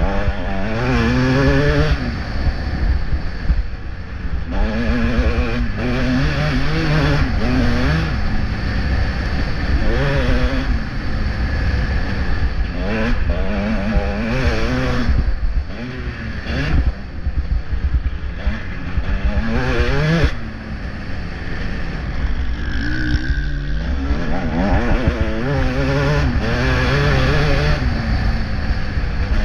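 Motocross bike engine heard from on the bike, revving up hard and backing off again and again as the rider accelerates along the dirt track and shifts gear, the pitch climbing every second or two. A heavy low rumble runs underneath.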